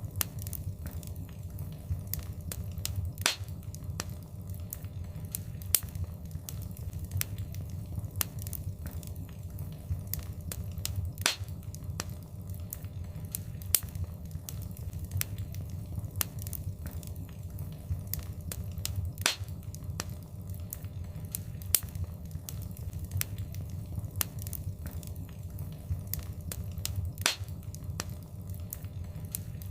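Wood fire crackling: many small irregular pops and snaps over a low steady rumble of the flames, with four louder pops spaced widely apart.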